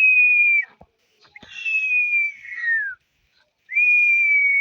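Three long whistled notes in a row, each held fairly steady and then sliding down in pitch at its end; the middle one falls the furthest.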